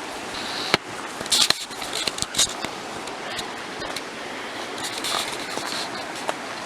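Brook water running over rocks, a steady rushing hiss, with several sharp clicks and clacks in the first few seconds.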